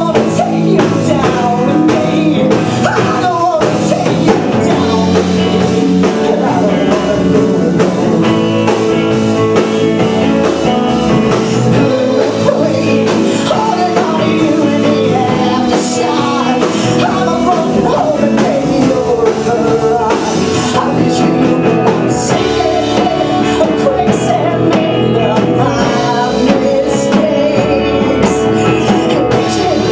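A live rock band with electric guitar, keyboard, bass and drums plays a grunge-style song, with a woman singing over it into a microphone.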